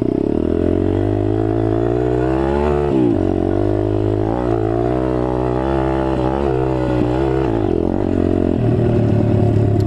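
MRF 140 RC-Z pit bike's single-cylinder four-stroke engine running under way, its revs rising and falling with the throttle, with a sharp climb and drop about three seconds in. The engine is still being run in.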